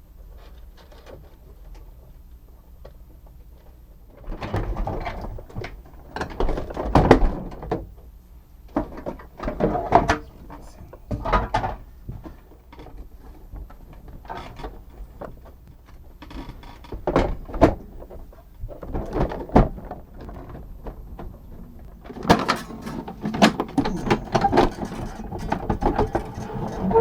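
Irregular clunks, knocks and rattles of parts being handled, coming in bursts with quiet gaps between them and busiest near the end.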